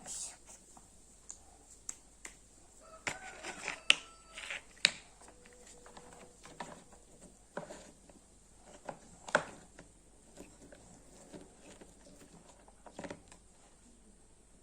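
Slime being handled and worked with the hands, making scattered sticky clicks and small squelches, with a brief pitched squeak about three seconds in.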